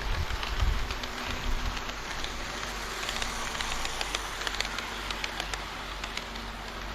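HO-scale model train running on the layout track, a steady rolling hiss with a fine crackle of wheels on rail. There are a few low thumps in the first second.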